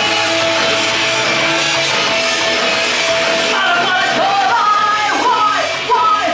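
Rock-style backing music with guitar played over a club PA; about three and a half seconds in, a woman's voice comes in singing loud phrases into a microphone over it.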